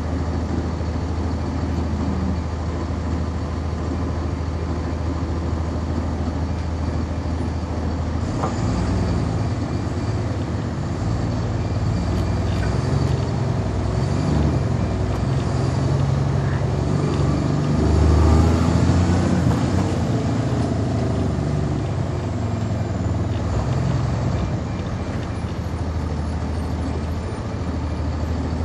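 NovaBus RTS transit bus with a Cummins ISC diesel and ZF Ecomat transmission, heard on board: a steady low engine hum for about eight seconds, then the engine and drivetrain whine rising and falling in pitch as the bus pulls away. It is loudest about two-thirds of the way through, with faint high whistling sweeps, then settles back to a steadier hum near the end.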